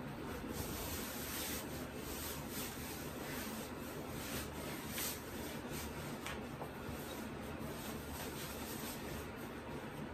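Clothing rustling and rubbing as a pair of pants is pulled on and adjusted at the waist, over a low steady hum.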